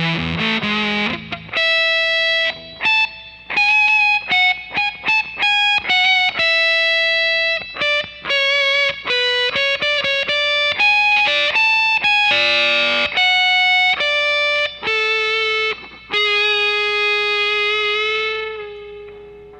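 Electric guitar played through a Gato Satanico fuzz pedal. It opens with a low, thick fuzzed riff, then moves into single-note lead lines with held, wavering vibrato notes, and the last sustained note fades out near the end.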